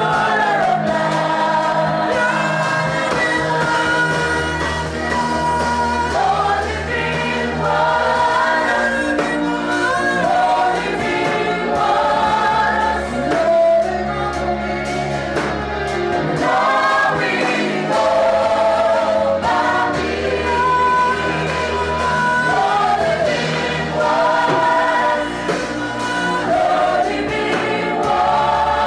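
Live gospel worship singing: a group of voices holding long, sliding notes over steady low sustained accompaniment, in a poor-quality recording.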